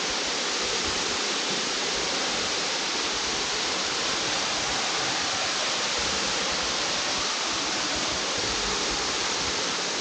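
A waterfall rushing steadily: an even, unbroken hiss of falling water.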